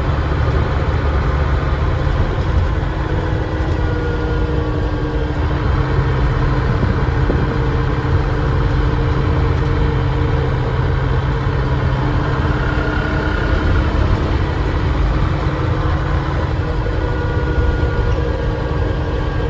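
Dennis Trident double-decker bus running under way, heard from on board: a steady engine drone with a high whine from the turbocharger.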